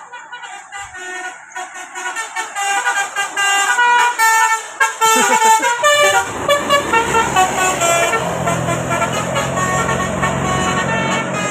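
Bus telolet horn playing a quick tune of short, high notes, several a second. From about six seconds in, the bus's engine rumbles underneath while the horn tune continues.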